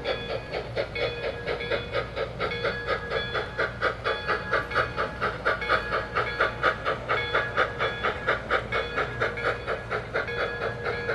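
Sound decoder (Soundtraxx 4400 series) in an O-scale model of a Northern Pacific Q-3 steam locomotive playing a steady steam exhaust chuff, about four beats a second, as the engine runs past. The chuffing is loudest in the middle, with a steady tone underneath that fades out for a while in the middle.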